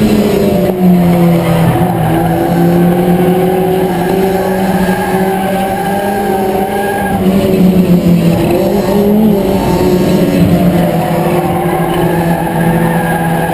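Ford Escort race car's four-cylinder engine running hard, heard from inside the cockpit, its pitch dipping and climbing again a few times as the driver lifts off and gets back on the throttle.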